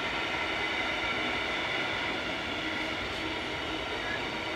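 Freight train of rail tank wagons rolling past close by: a steady rush of wheel-on-rail noise with a faint high ringing.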